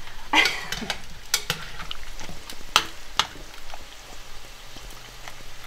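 Metal slotted spoon stirring a thick ham and milk sauce in an enamelled saucepan, with irregular clicks and scrapes of metal against the pot, over a low sizzle of potato wedges frying in oil.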